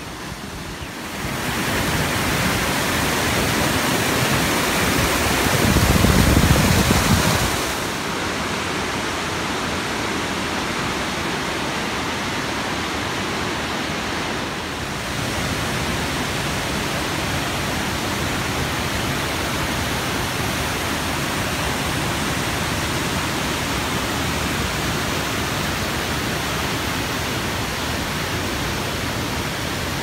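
Waterfall and river, a steady rush of falling water, with a brief low rumble about six seconds in.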